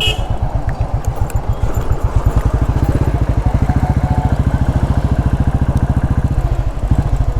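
Motorcycle engine running with a steady, even beat.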